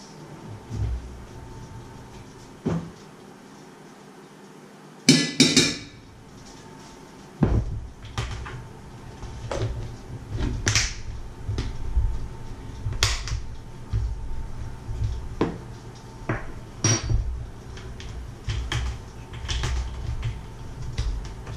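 A series of sharp clicks and knocks from a metal spoon against a white plastic tub and the tub's plastic lid being put on and pressed down, with a quick cluster of clicks about a quarter of the way in. A low rumble runs underneath from about a third of the way in.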